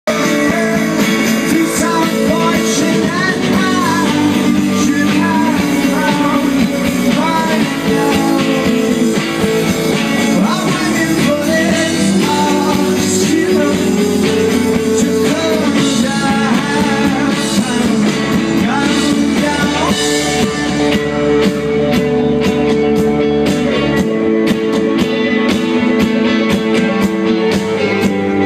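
Rock band playing live: a sung vocal line over guitars, with steady drum strokes coming in about twenty seconds in.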